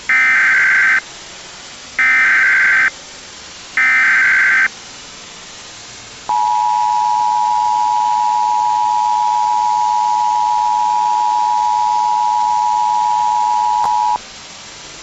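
Emergency Alert System tones: three SAME header data bursts of warbling high tones, each about a second long with a second's gap between them. These are followed by the two-tone attention signal, held steady for about eight seconds, all over a constant hiss.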